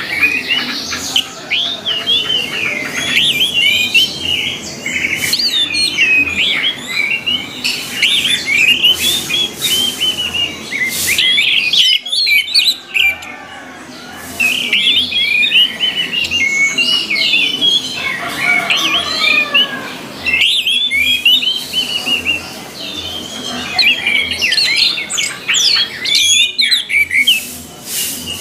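Orange-headed thrush song: rapid, varied runs of high chirps and whistles in long bursts, broken by short pauses.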